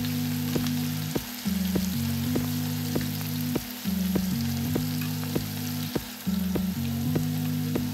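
Background music with a steady beat and a low bass line, over fish fillets and scallions sizzling in a hot pan with a fine, even crackle.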